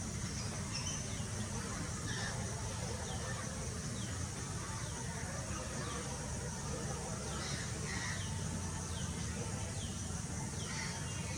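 Common kingfisher giving short, high calls that each fall in pitch, about a dozen at uneven intervals of roughly half a second to a second, over a steady low rumble.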